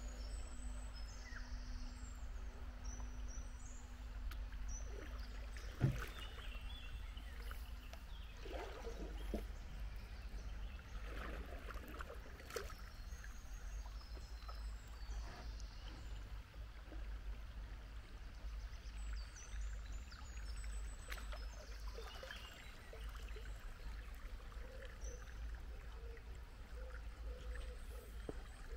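Water lapping and trickling against a kayak's hull on a river, over a steady low wind rumble on the microphone. A single sharp knock about six seconds in, and a few faint high chirps.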